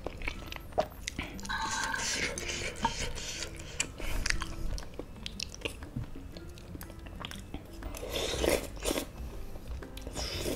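Mouth eating noodles in broth: two longer slurps, the first about a second and a half in and the second near the end, with chewing and light clicks of chopsticks and a metal spoon against the bowl between them. Faint background music underneath.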